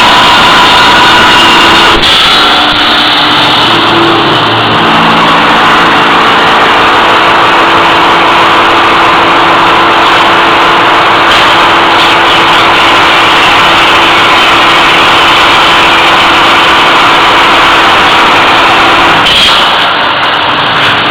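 Welded pipe forming and welding line running: a loud, steady mechanical noise with a few steady hum tones under it. It changes abruptly about two seconds in and again near the end.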